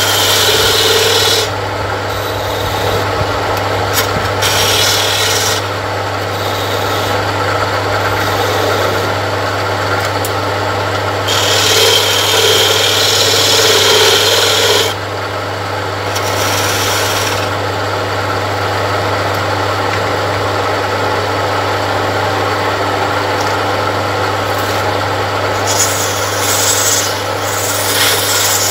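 A homemade wood lathe runs steadily with a low hum from its 0.27 kW single-phase electric motor. A hand-held steel tool scrapes and cuts the spinning wooden workpiece, throwing off shavings. The rasping swells in several louder passes of one to three seconds each.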